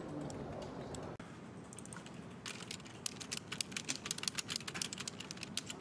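Fast typing on a computer keyboard: a quick patter of key clicks, sparse at first and much denser from about two and a half seconds in.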